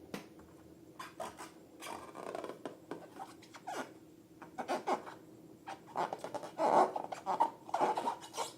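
Slime being worked by hand: a run of short, irregular sticky squelches and crackles, busier and louder in the second half.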